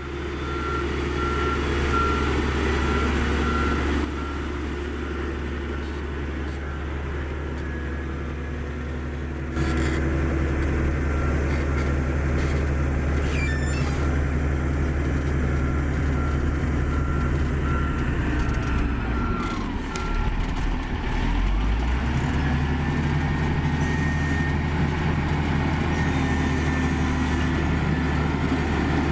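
Komatsu GD555 motor grader's diesel engine running steadily, with a reversing alarm beeping at an even rhythm. The beeping stops about two-thirds of the way through, as the engine note dips and then picks up again.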